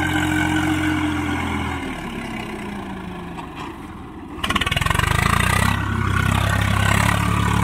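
Swaraj 855 tractor's three-cylinder diesel engine pulling through soft paddy-field mud. It runs steadily, then its revs fall and it grows quieter about two seconds in. From about four and a half seconds in it is louder and steady again.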